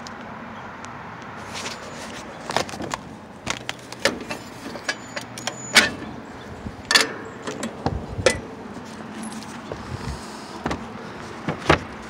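Scattered sharp clicks, knocks and light metallic rattles of hands working at a rooftop package unit's open panels and fused electrical disconnect, over a steady low hiss.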